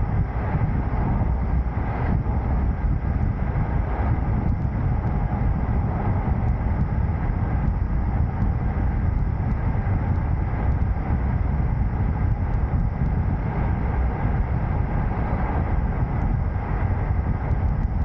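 Steady low rumble of a vehicle driving at a constant pace, road and wind noise with no change in engine speed.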